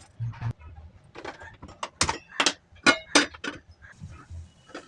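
A series of sharp clicks and knocks from cooking utensils or packaging being handled, several in quick succession about two to three and a half seconds in.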